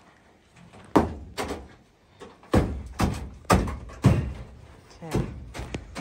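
A series of loud, irregular bangs and thuds, about seven of them, spaced roughly half a second to a second apart.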